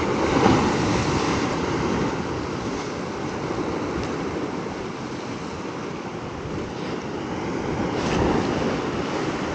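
Ocean surf surging and washing against the rocks below, in a steady noisy wash that swells about half a second in and again near the end, with some wind on the microphone.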